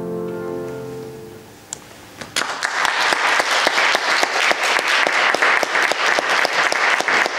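A grand piano's final held chord rings out and fades away over the first second and a half. About two seconds in, an audience breaks into applause, which goes on thick and steady.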